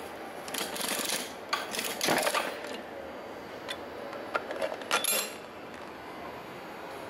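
Coin-operated capsule vending machine being worked: its chrome crank handle turned with metallic rasping and clicking, then sharper metal clicks and a clatter about five seconds in from the hinged metal delivery chute.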